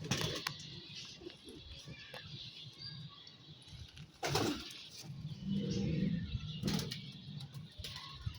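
Domestic pigeons cooing in a loft, the low coos strongest a little past the middle, with a few short rustles.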